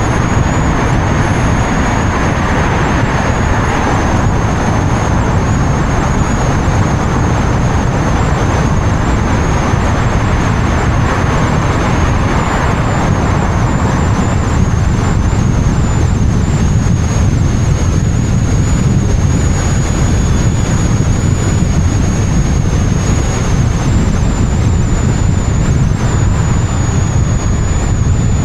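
Steady wind and road noise picked up by an action camera mounted on the outside of a moving car: a dense, heavy rumble of airflow, tyres and engine, with a thin high whine running over it.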